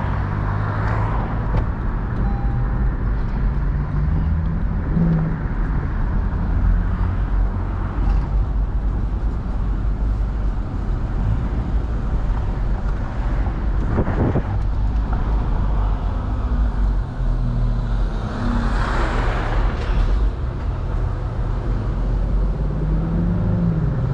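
Lexus LC500's naturally aspirated 5.0 V8 running on the move with the roof down, its low engine note rising and falling a little, under a steady rush of wind and road noise. A short knock comes about 14 seconds in, and the noise swells briefly around 19 to 20 seconds.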